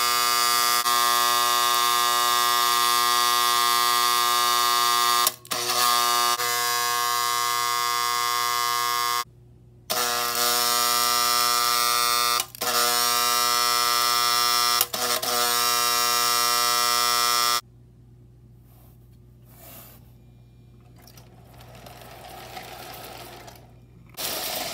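Lionel 97 coal elevator's motor running with a loud, steady electric buzz as it drives the bucket conveyor, cutting out briefly a few times and stopping about three-quarters of the way through. After that there is only faint noise, with a short louder noise near the end.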